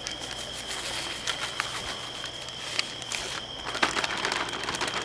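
Plastic zip-top bag crinkling and rustling as it is handled, a scatter of small irregular crackles and clicks. A steady faint high-pitched whine sits underneath.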